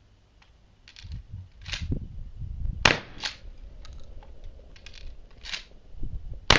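12-gauge Mossberg 500 pump shotgun firing birdshot: two sharp shots about three and a half seconds apart, with shorter hissing noises between them.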